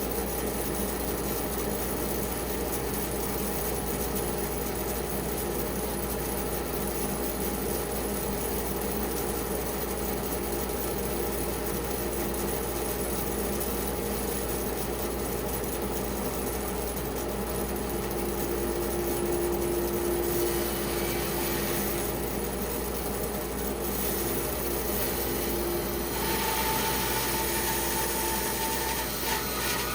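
Band saw running and resawing a wet spalted pecan log into bowl blanks: a steady motor hum with the blade hissing through the wood, turning brighter for the last few seconds.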